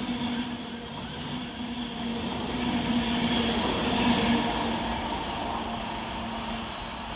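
Avanti West Coast express train running past along the platform: the rumble of its wheels on the rails with a steady hum. It grows louder to a peak about four seconds in, then fades as the train draws away.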